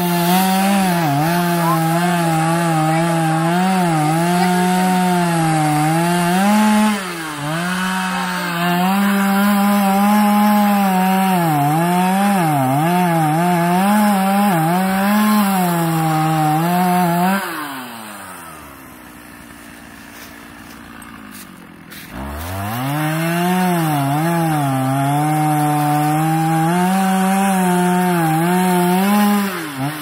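A two-stroke chainsaw running at full throttle, cutting wood, its pitch dipping again and again as the chain loads up in the cut. About eighteen seconds in it drops back to idle for a few seconds, then revs up and cuts again.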